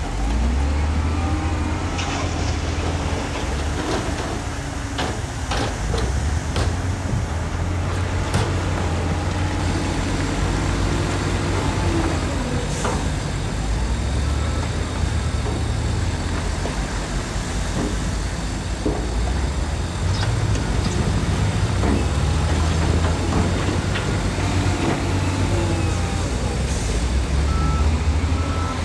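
Heavy diesel construction machinery running under load, with the engine note rising and falling, and scattered clanks and knocks, several of them about four to eight seconds in.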